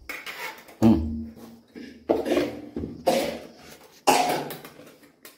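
A person coughing four times, about a second apart.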